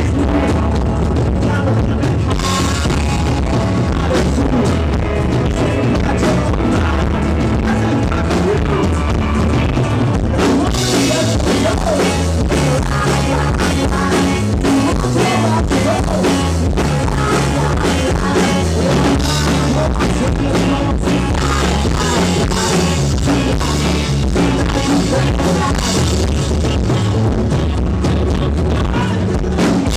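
Live rock band playing a song with singing: acoustic and electric guitars, bass, drum kit and tenor saxophone. The sound gets brighter about ten seconds in.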